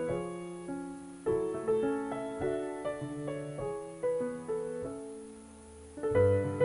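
Background piano music: melody notes over chords, thinning out to a quieter moment about five seconds in before louder notes come back.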